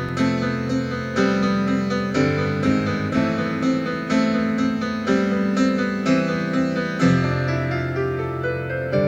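Piano playing a slow, gentle piece: held low notes that change every one to two seconds under repeated higher notes and chords.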